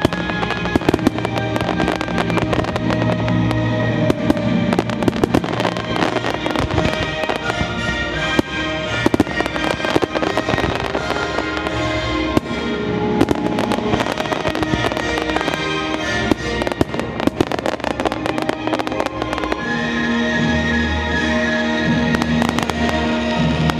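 Fireworks display going off in a dense, continuous run of bangs and crackles, with music playing along.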